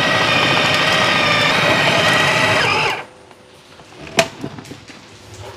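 Small electric mini blender motor running under load as it grinds meatball dough of meat, ice, egg and flour. The motor stops about three seconds in, followed by a couple of light knocks.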